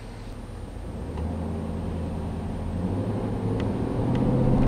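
2012 Dodge Durango R/T's 5.7-litre Hemi V8 pulling away from a stop under normal acceleration, heard from inside the cabin. The engine note grows steadily louder and edges up in pitch as the SUV gathers speed.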